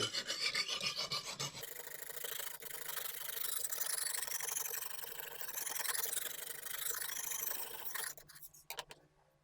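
Extra-coarse 70-grit Lansky sharpening hone rubbing back and forth along a kitchen knife's edge, a steady scraping that stops about eight seconds in.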